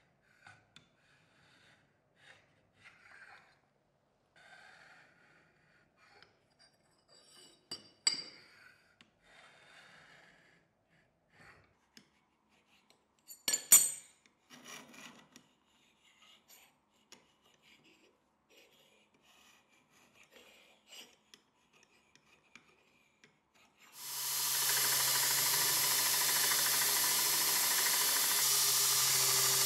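Light scraping and small metallic clicks as a steel blade and block are slid against a steel height gauge to scribe layout lines, with two sharp clicks about 8 and 14 seconds in. About 24 seconds in, a belt grinder's motor starts and runs steadily with a low hum.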